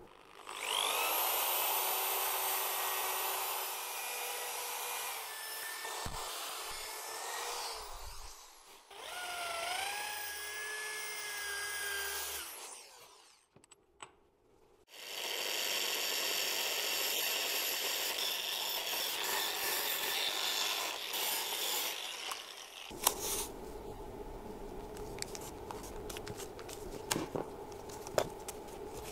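Power drill running in several bursts, each spinning up with a rising whine, as alternator parts are worked on. There is a short pause in the middle and a long steady run after it. Near the end comes rustling handling noise with a few sharp clicks.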